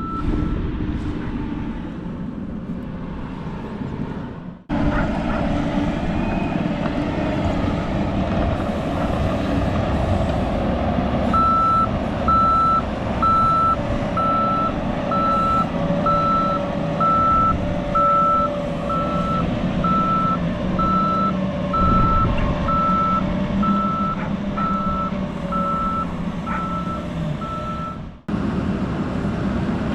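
Hyundai HT100V skid steer's engine running under load as it works, with its backup alarm beeping evenly, a bit more than once a second, from about a third of the way in until near the end. The sound breaks off abruptly twice.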